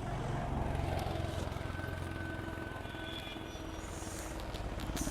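Motorcycle engine running steadily at a low, even speed.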